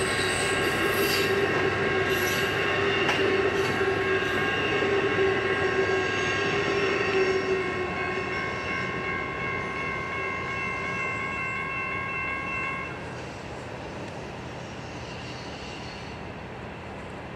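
Amtrak passenger train with Superliner cars rolling slowly through yard trackwork and moving away. Wheel flanges squeal in several steady high tones that stop about 13 s in, wheels click over switches in the first few seconds, and a lower steady drone fades out about halfway through as the train draws off.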